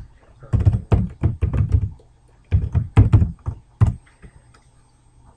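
Typing on a computer keyboard: two quick runs of keystrokes, each about a second and a half long, with a short pause between.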